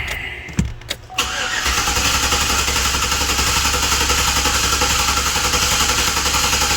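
Starter cranking a Chevrolet Silverado's 5.3L V8 in clear-flood mode, throttle held wide open so the injectors are cut. The cranking begins about a second in and runs steady and even, which the mechanic takes as a sign of no compression or mechanical problem.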